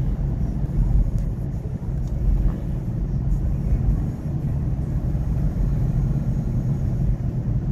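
Steady low rumble of a car on the move, tyre and engine noise heard from inside the cabin.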